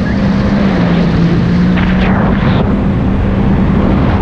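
Jet ski engine running at speed, a steady drone whose pitch dips slightly about a second in and comes back up, over a loud rush of wind and water.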